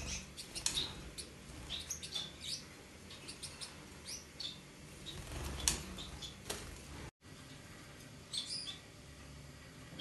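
Caged finches giving short, high chirps at irregular intervals, with a quick cluster of calls near the end. The sound cuts out for an instant about seven seconds in.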